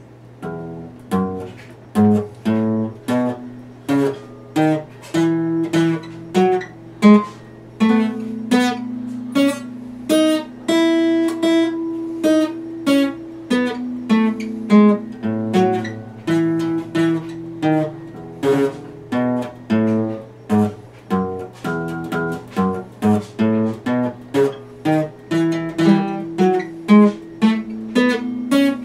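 Epiphone acoustic guitar played solo, plucked notes and chords in a slow, steady rhythm with bass notes ringing under them; the playing starts about a second in.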